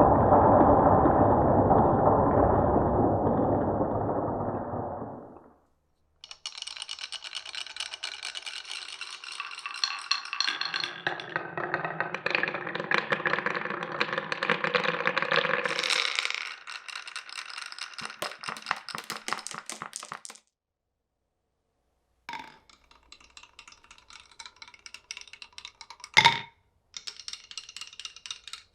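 Marbles rolling through a wooden marble run. A dense rolling rumble fades out over the first few seconds, then long runs of rapid clicks with ringing tones follow. After a short pause the clicking returns, with one sharp, loud knock near the end.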